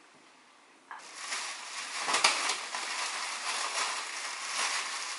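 Clear plastic shower cap crinkling as it is pulled over foam-dyed hair and adjusted. The irregular crackling starts about a second in and carries on.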